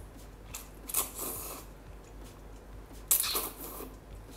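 A person slurping spicy glass noodles off chopsticks, two noisy wet slurps, one about a second in and a louder one about three seconds in.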